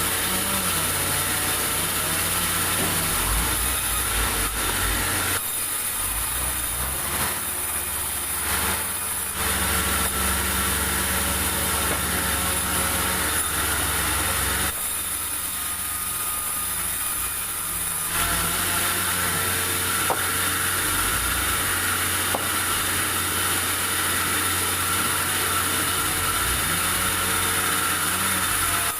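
Sawmill running steadily, its engine droning while the saw cuts durian wood. The high saw hiss drops away twice for a few seconds.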